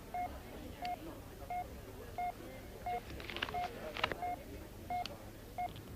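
Electronic bug detector beeping in short, evenly spaced pulses, about three every two seconds, as it registers a hidden transmitter. A few light clicks come about three to four seconds in.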